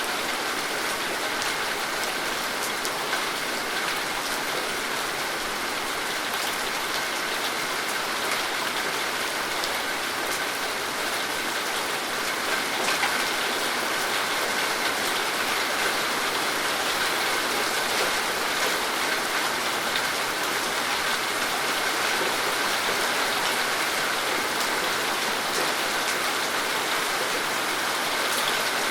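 Steady rain falling, with many individual drop hits scattered through an even hiss.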